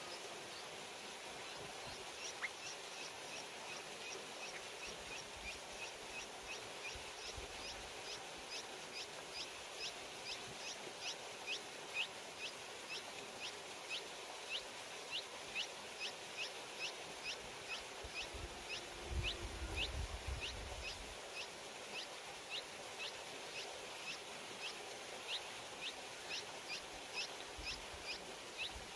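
Bulbul nestlings begging: a fast, even run of short high chirps, about two to three a second, over a steady hiss. A brief low rumble comes in about two-thirds of the way through.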